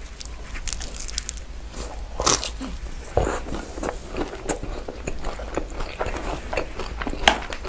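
Close-miked mouth sounds of a man biting into a slice of pizza and chewing it: a steady run of small crunches, with a few louder ones, over a low hum.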